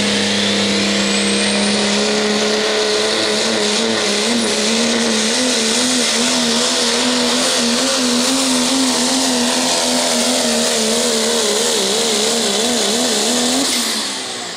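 Pro stock diesel pickup engine at full throttle pulling a weight-transfer sled, its pitch wavering rapidly up and down over heavy noise, then falling away sharply near the end as the pull finishes.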